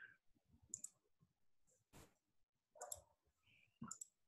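Near silence broken by a few faint computer mouse clicks, about five scattered over four seconds, some as quick double clicks.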